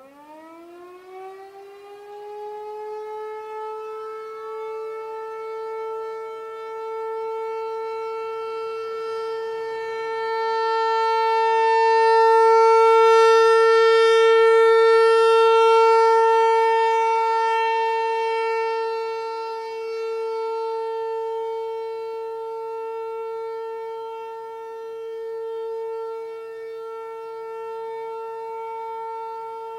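American Signal Corporation T-128 outdoor warning siren winding up from a low pitch to a steady, very loud two-tone wail, sounding its monthly test. It grows loudest around the middle and then eases off a little.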